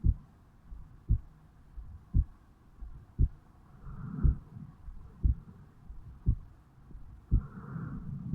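Human heartbeat recorded over the mitral valve area of a 35-year-old man's chest on waking: steady, even thumps a little under one a second, a resting rate of about 57 beats a minute. A softer rushing sound swells about four seconds in and again near the end.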